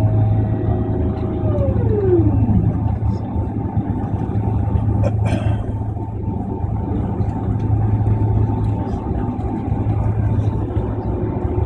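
Boeing 767-400ER cabin noise while taxiing: a steady low hum of the running aircraft. A whining tone drops away in pitch about two seconds in, and a single sharp click sounds about five seconds in.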